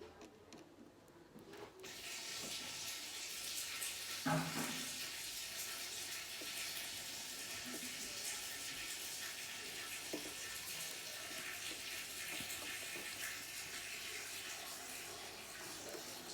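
Steady hiss of running water, like a tap left running, that starts abruptly about two seconds in.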